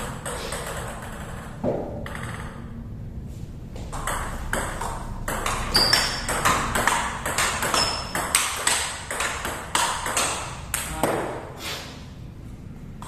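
Table tennis rally: the celluloid ball clicking in quick succession off the rackets and the table, in a room that echoes. The hits come thickest from about four seconds in to near the end.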